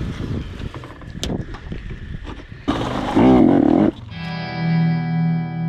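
Rough, uneven noise, then a loud sound with a wavering pitch lasting about a second, followed by a distorted electric guitar chord that starts about four seconds in and rings on steadily.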